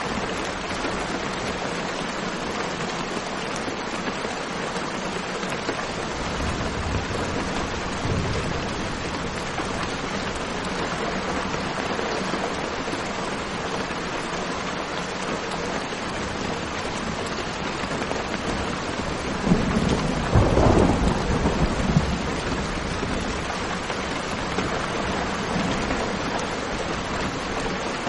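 Steady rain, with a faint low rumble of distant thunder about a quarter of the way in and a louder roll of thunder lasting a couple of seconds about two-thirds through.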